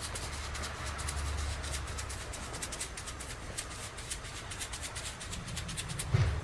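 Outdoor field ambience: a steady low rumble with many faint, irregular ticks over it, and one louder low thump about six seconds in.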